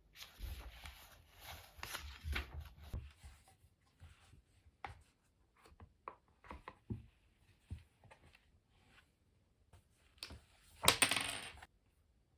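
Small handling sounds: scattered light clicks and soft rustling, with a louder rustle lasting under a second about eleven seconds in.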